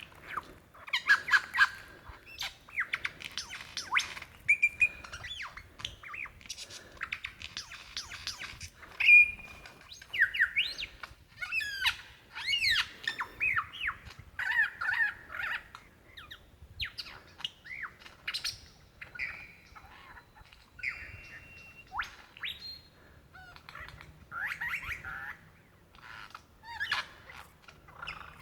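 Male superb lyrebird singing his courtship song, calling for a mate: a loud, varied run of rapid sweeping whistles, trills and sharp clicky notes, one phrase after another with short gaps.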